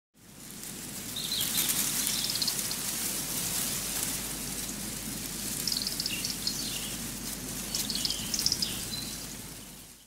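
Woodland ambience: short, high bird calls and chirps in several bouts over a steady hiss, fading in at the start and out at the end.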